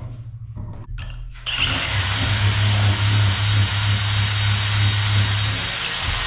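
Power drill boring a hole into a wooden knife-handle block for the tang. The drill starts suddenly about a second and a half in and then runs steadily and loud.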